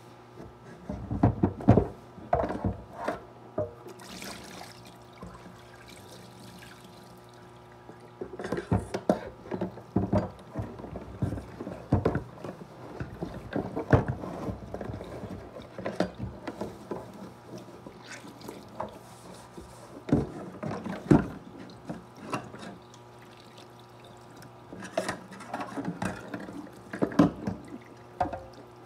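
Tap water running from a kitchen faucet into a plastic container as it is rinsed, with splashing and plastic knocks and clunks in several bursts separated by quieter pauses. A steady low hum lies underneath.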